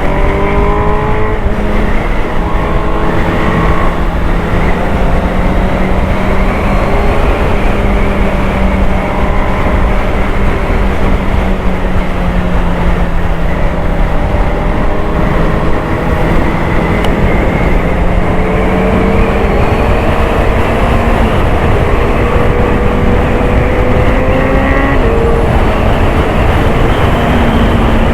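Honda CBR650R's inline-four engine running under way, its note slowly rising and falling with the throttle over a heavy rush of riding wind; the pitch steps about 25 seconds in.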